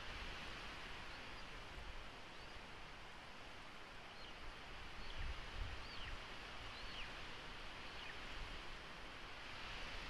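Faint, steady outdoor hiss with a series of thin, high whistled bird calls, each sliding downward, roughly one a second. A few low bumps come about halfway through.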